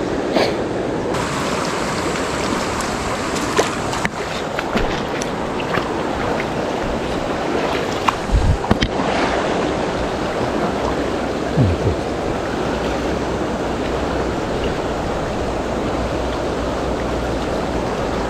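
Mountain river water rushing steadily over rocks, with a few brief knocks and low thumps on top.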